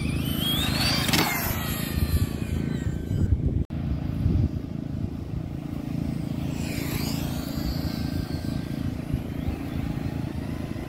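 RC drag car's motor whining up in pitch as the car launches down the strip, then fading as it pulls away; a second, shorter whine rises and falls about halfway through, over a steady low rumble.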